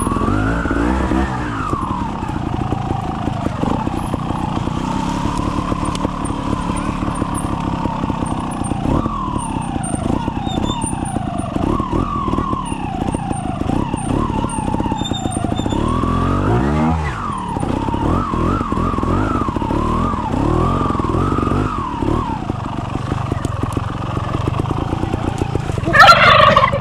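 TRS trials motorcycle engine revved in short throttle blips at walking pace, its pitch rising and falling with each blip. Near the end comes a short, loud, higher-pitched burst.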